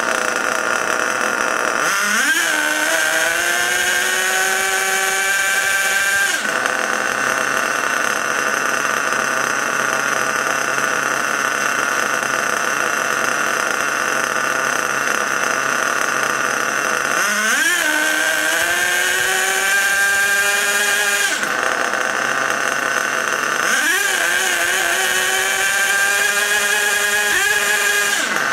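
HPI Savage's 3.5 cc nitro engine running with the truck up on a block and its wheels spinning free, holding a steady high-pitched note and revved up three times, each rev rising sharply and then climbing slowly for a few seconds before dropping back. The freshly broken-in engine is tuned rich on the high-speed needle.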